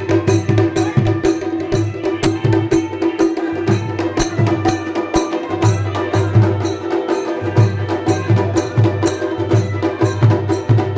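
Uttarakhand (Kumaoni) folk music in an instrumental break between sung verses: a held melodic drone with a tune over it and a steady, quick drum beat.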